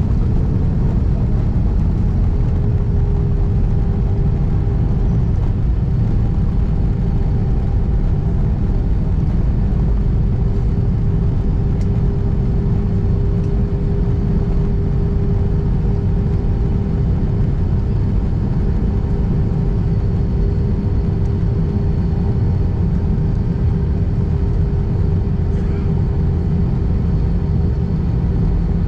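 Airbus A320 cabin noise from a seat over the wing while the airliner rolls on the ground after landing: a steady engine rumble with a steady hum above it.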